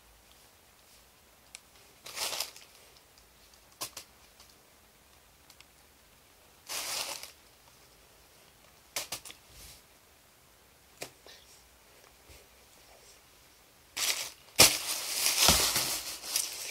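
Tissue paper rustling and crinkling in short bursts a few seconds apart, then a longer, louder stretch of rustling with sharp knocks near the end as the paper-lined basket is handled and moved.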